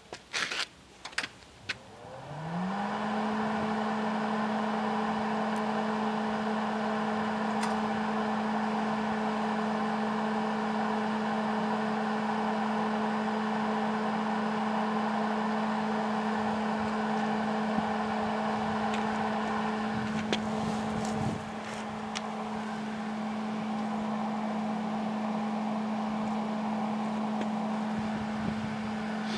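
Welder being powered up: a few clicks, then its motor spins up over about a second to a steady hum and keeps running evenly, dipping slightly in level once about two-thirds of the way through.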